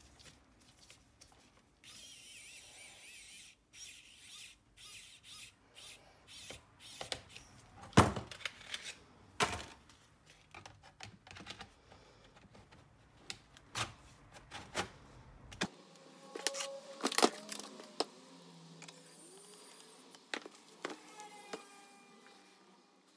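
Clicks, taps and knocks of hands handling a plastic laptop as a second-drive caddy is fitted into its optical drive bay and the laptop is turned over and opened. A sharp knock comes about eight seconds in.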